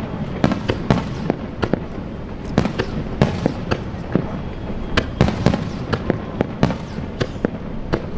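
Fireworks display: a quick, irregular run of sharp bangs and crackles from bursting aerial shells, several a second.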